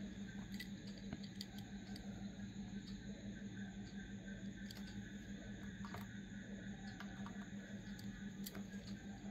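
Faint, scattered clicks and taps of fingers handling a small diecast toy car, over a steady low electrical hum.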